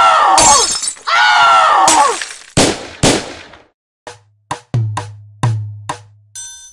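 Added comic sound effects over music: two long tones that bend and fall in pitch, then two sharp crashes like something breaking about two and a half and three seconds in, then a drum-machine beat with low booming hits and a short ding at the end.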